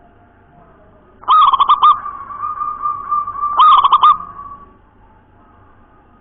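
Zebra dove (perkutut) cooing: two quick runs of rapid stuttering notes about two seconds apart, joined by a held tone that fades out, in the fast clear 'nropel' style of song.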